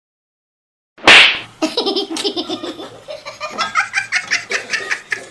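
A sudden loud hiss about a second in, then hearty laughter in quick, rapid pulses.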